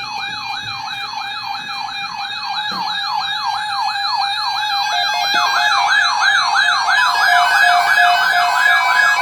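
Electronic siren on a fast yelp, rising sweeps about three a second, steadily growing louder; a second siren's sweeps join about halfway through, overlapping the first.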